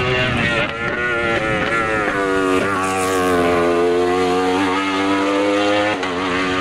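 Wolf Thunder sports-prototype race car running hard at high revs, its engine note held high. The pitch drops briefly at gear changes, about half a second, two and a half and six seconds in.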